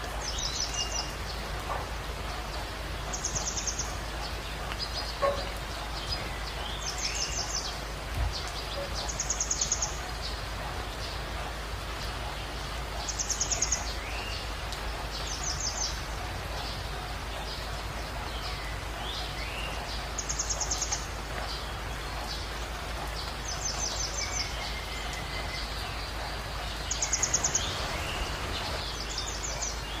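Songbirds singing over a steady rush of forest stream water: a short, high trilled phrase repeats about ten times, every two to three seconds, with other chirps and whistles in between.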